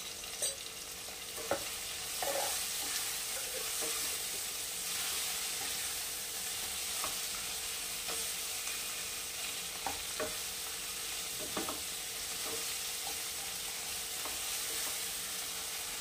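Tomato-and-spice masala sizzling in oil in a kadai over a gas flame while a wooden spatula stirs it, scraping and tapping the pan every second or two. The masala, with freshly added coriander powder, is being sautéed (bhuna) to cook off its raw smell.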